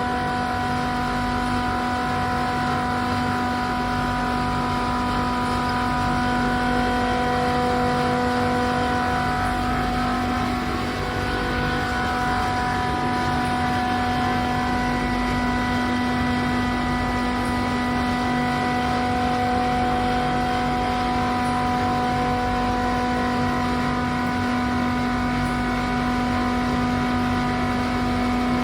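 Running chiller machinery, a steady hum with several held tones over a noisy bed.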